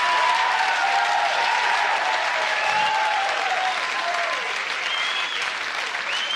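Live audience applauding and cheering after a punchline.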